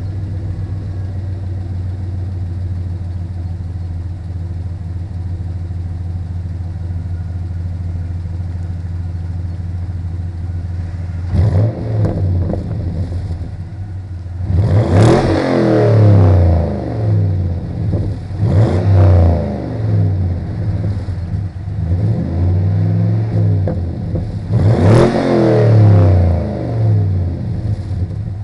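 Stock exhaust of a 2004 Pontiac GTO's 5.7-litre LS1 V8, idling steadily. From about eleven seconds in it is revved repeatedly, each rev rising and falling back to idle.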